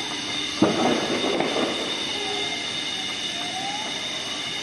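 A sudden loud bang about half a second in, trailing off in about a second of crackle, over a steady high-pitched whine and a fainter tone that slowly dips and rises.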